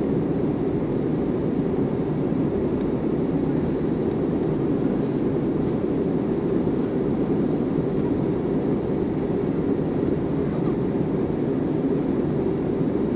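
Steady cabin noise inside a jet airliner climbing after takeoff: the engines at climb power and rushing air make an even, low-pitched rushing drone with no change.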